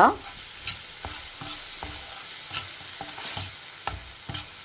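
Metal spatula scraping and knocking against a stainless steel pan while onions and tomatoes are stirred, about two strokes a second, over a steady faint sizzle of frying in oil.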